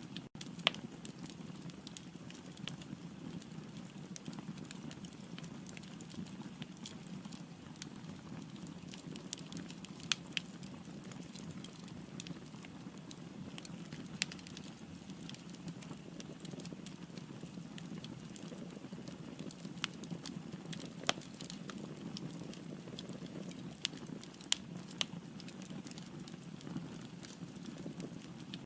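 Wood fire burning in a fireplace: a steady low rumble of flames with sharp, irregular pops and crackles from the firewood.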